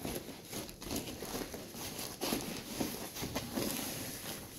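Rustling and crinkling of a soft foam-plastic protective wrap bag being handled and pulled off a NAS enclosure, with a few louder swishes.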